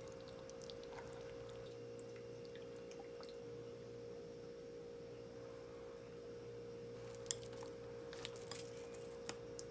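A steady electrical hum, one unchanging tone, with faint clinks of metal tongs and a ladle against porcelain bowls, and a few sharper clicks and taps in the last few seconds.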